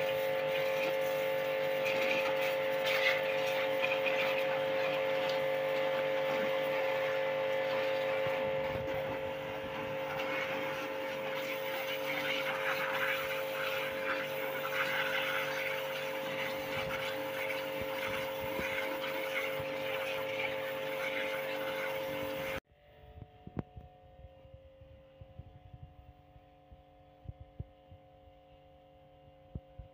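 Pressure washer running with a steady motor hum under the hiss of its water jet spraying. About three-quarters of the way through, the sound drops suddenly to a much fainter hum.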